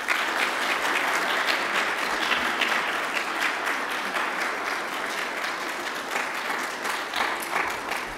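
A church congregation applauding: many hands clapping in a dense, steady patter that eases off near the end.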